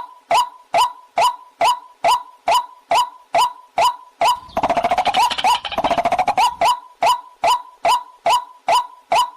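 Recorded waterhen call: a short upward-sweeping note repeated steadily about two and a half times a second, with a fast rattling stretch from about four and a half to six and a half seconds in.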